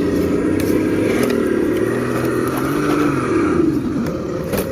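An engine running, its pitch slowly rising and falling, with a few faint clicks and scrapes.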